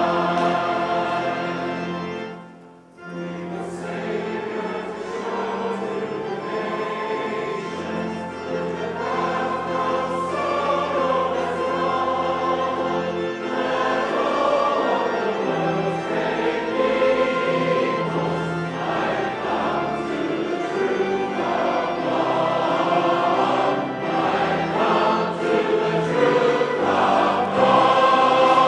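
Church choir singing, with a short break between phrases about three seconds in before the singing resumes over steady low notes.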